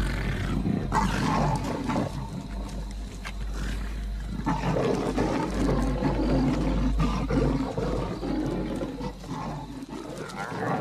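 Lions growling repeatedly, rough and loud, heaviest in the second half, over a steady low hum.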